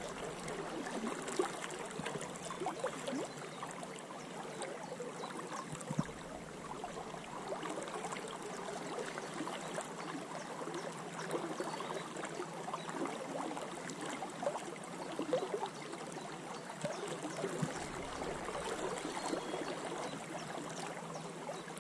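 River water flowing and lapping steadily around a wading angler, a spate river running high after heavy rain. A couple of brief knocks come about a second in and again about six seconds in.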